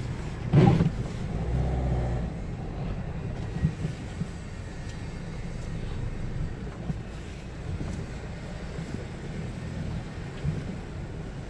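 A vehicle driving, with a steady low rumble of engine and road noise and a brief loud knock about half a second in.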